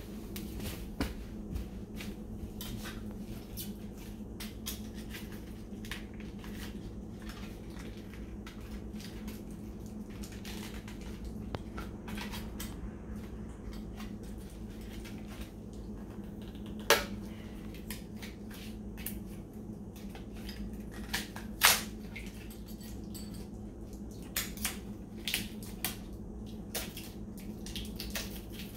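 Small metal hardware, carabiners and anchor hooks, clicking and clinking as it is handled, with two sharper clicks about two-thirds of the way in. A steady low hum sits underneath.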